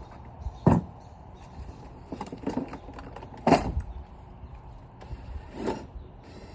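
A handful of sharp knocks and clatters of tools and fittings being picked up and set down, loudest about three and a half seconds in.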